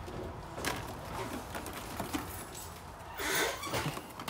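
Plastic blister-packed toy cars being handled on store display pegs: a few light plastic clicks and a brief crinkling rustle about three seconds in.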